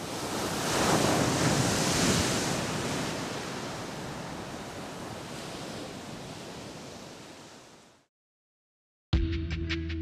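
Ocean surf washing up a beach: the wave noise swells over the first couple of seconds, then slowly fades away. After about a second of silence, music starts near the end.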